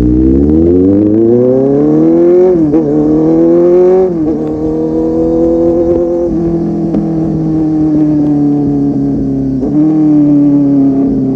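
Kawasaki Z800's inline-four engine through an aftermarket full-system exhaust, accelerating under load. The pitch climbs and drops at an upshift about two and a half seconds in, then climbs and drops again at a second upshift about four seconds in. It then settles into a steady cruise, with a brief dip and pickup about ten seconds in.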